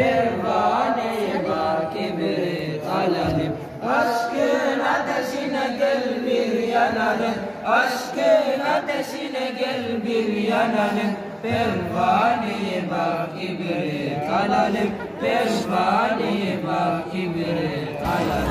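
A group of young men chanting together, voices only.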